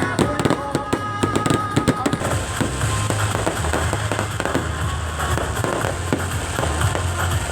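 Fireworks display exploding: a quick run of sharp bangs from bursting shells, turning into denser, continuous crackling after about two seconds.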